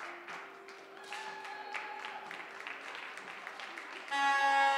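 Background music with long held notes, over many scattered sharp clicks and light clapping. A louder, brighter chord comes in near the end.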